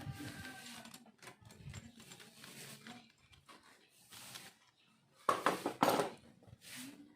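Small metal clicks and clinks of hand work on a scooter's carburetor hose clip, with a louder scraping rustle twice, about five and six seconds in.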